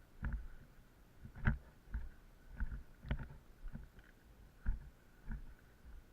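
Footsteps crunching through snow at a walking pace, about two steps a second.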